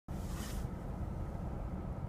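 Low, steady rumble of a car's engine and cabin, heard from inside the car, with a brief hiss about half a second in.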